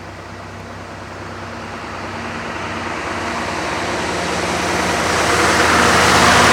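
Scania R500 V8 truck engine with an open straight-pipe exhaust running, growing steadily louder.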